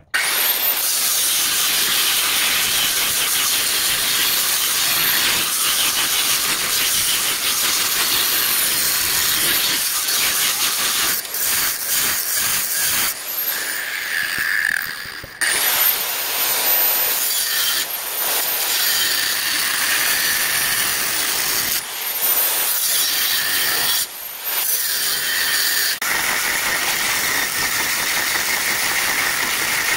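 Angle grinder with a cutoff wheel cutting through quarter-inch A36 steel plate: a loud, steady high whine and grinding hiss. The cut breaks off briefly several times, and each time the grinder spins back up with a rising whine.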